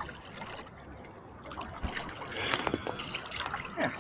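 Seawater sloshing and splashing right against a phone's microphone held at the surface by a swimmer, with small clicks and gurgles; the splashing grows louder about halfway through.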